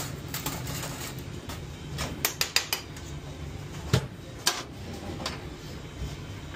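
Metal kitchen utensils, lids and pots clattering against stainless-steel inserts and pans. There is a quick run of clinks about two seconds in and two louder clanks around four seconds, over a steady low hum.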